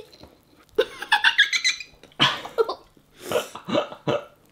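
A high-pitched squeal-like vocal sound about a second in, then a few short breathy vocal sounds, like giggles or sharp breaths, near the end.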